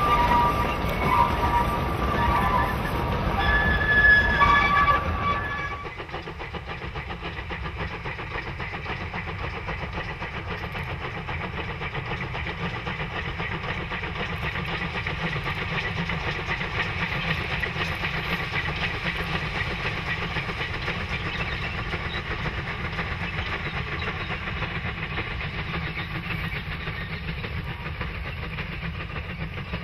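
Narrow-gauge railway wagons and coaches rolling past close by, with short high-pitched wheel squeals during the first few seconds. About six seconds in, the sound drops abruptly to a steady, quieter rumble of the train running at a distance.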